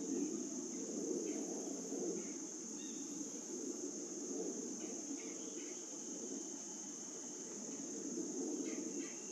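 Outdoor ambience: a steady high-pitched insect trill runs throughout over a low steady rumble, with a few faint short bird chirps scattered through it.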